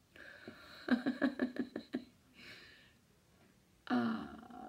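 A woman's voice muttering indistinctly, with a soft breath out about halfway through and a short vocal sound near the end.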